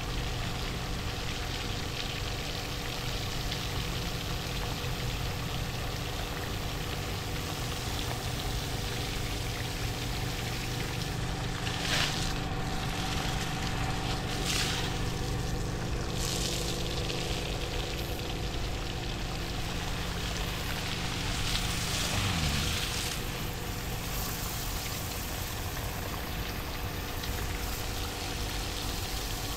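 Centrifugal water pump running with a steady motor hum over the rush of flowing water, with a few brief louder gushes around the middle.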